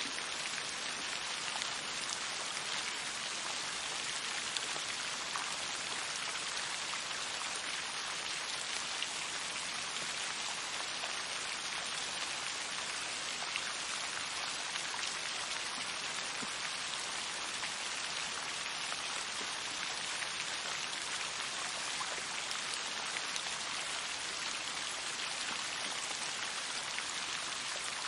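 Steady rain falling: an even, continuous hiss with scattered drop ticks.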